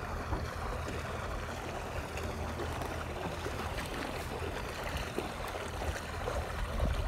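Small waves lapping and splashing, with a low wind rumble on the microphone.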